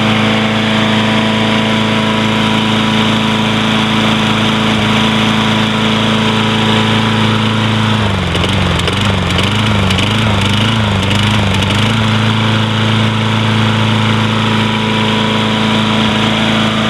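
Briggs & Stratton 6.5 HP single-cylinder four-stroke lawn mower engine running at a steady speed. Midway its speed wavers up and down for about four seconds, then settles again.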